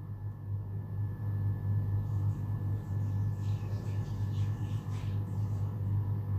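Beaten eggs sizzling in hot oil in a frying pan, the crackle strongest around the middle, over a steady low hum.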